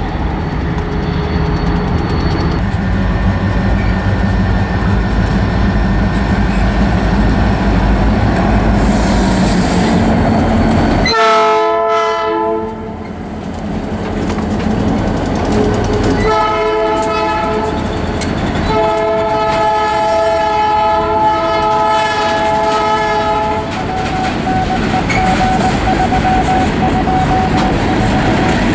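Diesel freight locomotive rumbling as it passes close by, then sounding its air horn three times: a blast of about two seconds some eleven seconds in, another about five seconds later, and a longer one of about five seconds. Freight cars then roll past with a clickety-clack.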